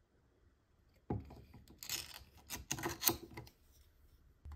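Aluminium dessert can and its peel-off metal lid being handled: a run of sharp metallic clicks and scrapes starting about a second in and lasting about two and a half seconds.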